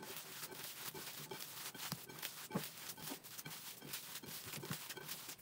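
Bare hands kneading and squeezing a sticky raw ground beef and pork sausage mixture in a bowl: irregular wet squishes and soft smacks.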